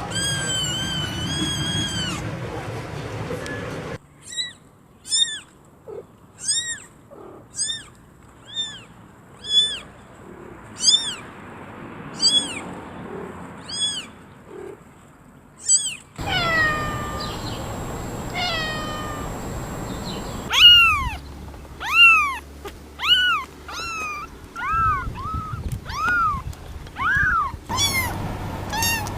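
Kittens meowing: a string of short, high-pitched mews, about one a second, with a few louder and lower meows in the later part.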